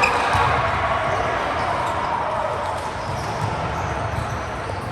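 Volleyball game in a sports hall: a sharp ball hit right at the start, then a steady din of players' voices and movement on court.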